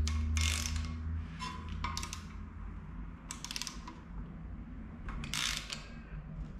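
Ratchet wrench on the crankshaft bolt clicking in several short bursts as the engine is turned over by hand, stepping the degree wheel round to find top dead centre. A low steady hum fades out in the first second or so.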